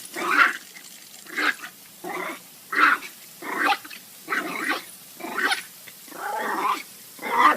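A puppy barking over and over, about ten short barks at a little more than one a second.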